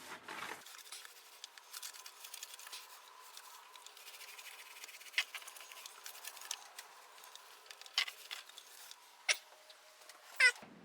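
A paintbrush stroking and dabbing paint onto a surface: a soft, scratchy patter of brush strokes, with a few sharper clicks and a short squeak near the end.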